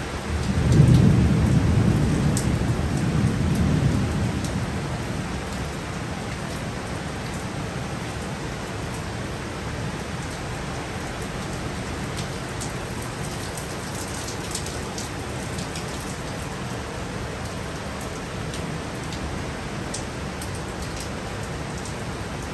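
Heavy, steady rain falling, with a clap of thunder about half a second in that rumbles loudly and dies away over the next four seconds while the rain keeps on.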